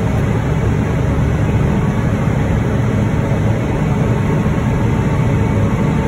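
Cotton picker running steadily while harvesting, heard from inside its cab: a loud, even machine drone, heaviest in the low end.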